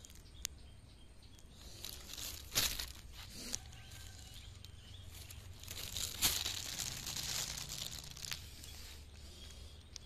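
Thin plastic bag rustling and crinkling as it is handled, in two spells: about two seconds in, and again from about five and a half to eight seconds in.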